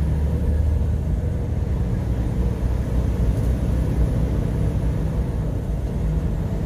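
Semi truck driving at road speed, heard from inside the cab: the diesel engine's steady low rumble under tyre and road noise.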